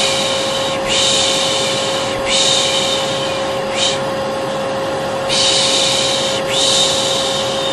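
Vacuum cleaner running steadily with a constant whine, overlaid with a person's repeated 'shh' shushing, about five hisses of roughly a second each and one short one. It is a baby-soothing white-noise mix.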